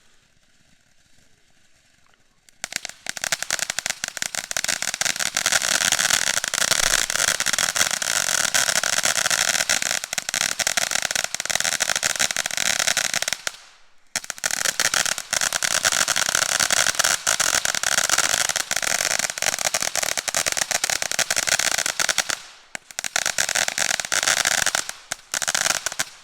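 Ball-shaped consumer ground firework going off with dense crackling and hissing. It starts a couple of seconds in, stops briefly about halfway, starts again, and ends with a few last pops near the end.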